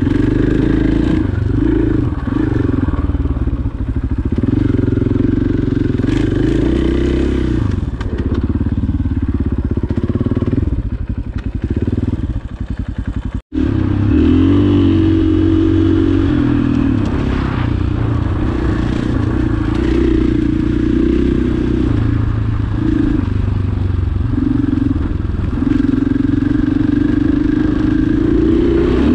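Single-cylinder four-stroke dirt bike engine running on a trail, its revs rising and falling with the throttle. The sound drops out for an instant about halfway through.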